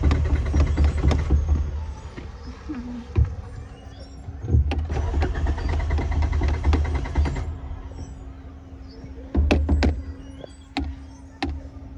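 Suzuki Alto's starter cranking the engine in three bursts without it catching: a short crank at the start, a longer one of about three seconds in the middle, and a brief one near the end. The engine will not start. Sharp clicks come between the attempts.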